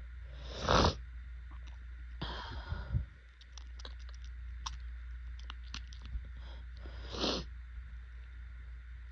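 A person with allergy-congested nose sniffing hard three times, about a second in, around two and a half seconds and near seven seconds, the first the loudest, with faint clicks in between.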